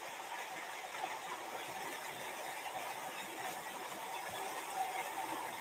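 Steady, quiet background noise of a room, an even hiss with a faint hum, with a soft click about a second in.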